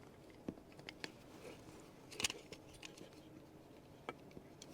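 Small plastic parts of a remote-control switch being handled and fitted together: a few faint, scattered clicks and taps, the loudest a little over two seconds in.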